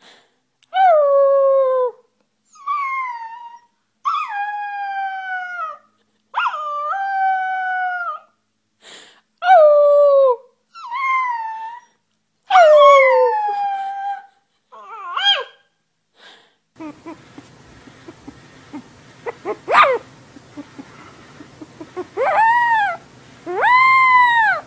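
A merle puppy howling in a run of about eight short calls, each falling in pitch. About 17 s in, a second puppy, a brown one, takes over and howls twice near the end in long arching calls that rise and fall.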